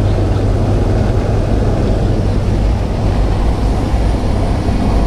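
Steady drone of a small high-wing jump plane's piston engine and propeller, heard from inside the cabin while it climbs, with a strong low hum.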